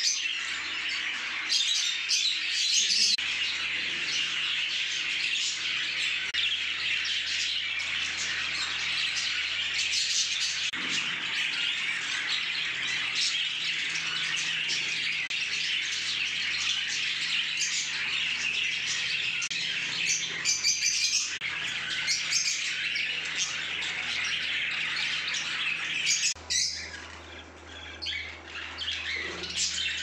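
Many budgerigars chattering and chirping at once, a dense, unbroken flock chorus. A low steady hum runs underneath and grows louder near the end.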